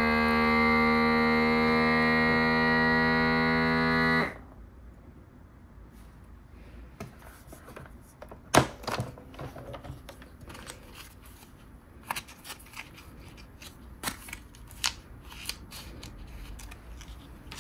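Vacuum sealer pump running with a steady hum while it draws the air out of a bag of pellet feed, cutting off abruptly about four seconds in. After that come scattered clicks and plastic rustling as the sealer's lid is opened and the sealed bag is handled, with one sharp click, the loudest sound, a little over eight seconds in.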